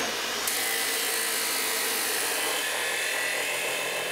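Abrasive chop saw running and cutting through a steel pipe: a steady, high-pitched grinding whine, with the blade biting into the metal about half a second in.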